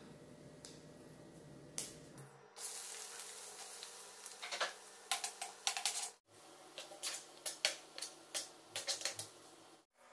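Sliced onion and green chillies sizzling in hot oil in a nonstick pan, with a metal spoon clicking and scraping against the pan as they are stirred. The sizzle sets in sharply about two and a half seconds in, after a quieter start.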